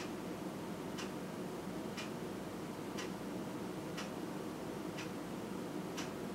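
Clock ticking steadily, one sharp tick each second, over a faint steady hiss of room noise.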